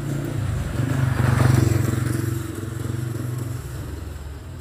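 A small motorcycle passing close by on the wet lane and riding away. Its engine hum swells to its loudest about a second and a half in, then fades.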